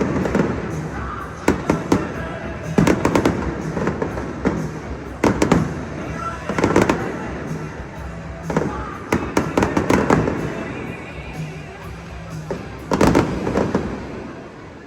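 Fireworks bursting overhead: a run of sharp bangs every second or two, some in quick pairs, each with a rolling echo.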